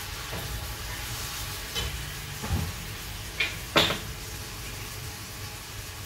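Kitchen work at a counter: a few short knocks and clatters of things being handled, the loudest near four seconds in, over a steady low hum and faint hiss.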